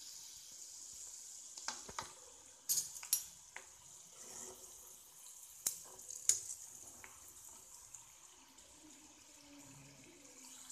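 Peanuts deep-frying in hot oil on medium heat inside a stainless steel mesh strainer: a steady high sizzle. A few sharp clicks of a spoon stirring against the strainer come between about two and six and a half seconds in.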